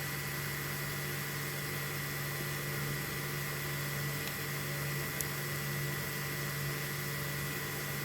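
Steady hum and hiss of a small machine running, unchanging throughout, with one faint click about five seconds in.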